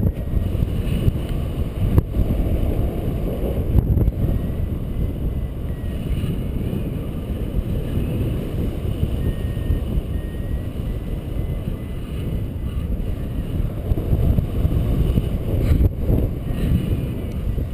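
Wind rushing and buffeting over the camera microphone of a paraglider in flight, a steady low rumble with gusty peaks. A few faint short high beeps come and go through it.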